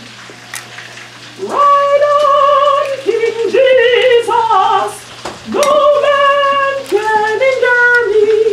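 A woman singing a tune with long, high held notes, beginning about a second and a half in, over the faint sizzle of chicken frying in oil. An egg cracks sharply against the bowl less than a second in.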